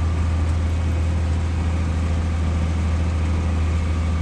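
Farm tractor engine running steadily while the tractor drives along, heard from inside its cab as a constant low hum.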